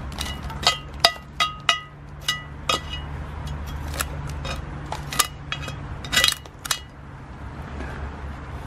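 Metal grill tongs clinking and scraping against a cast-iron Dutch oven lid as the charcoal is knocked off it: about a dozen sharp, ringing clinks over the first seven seconds, then they stop.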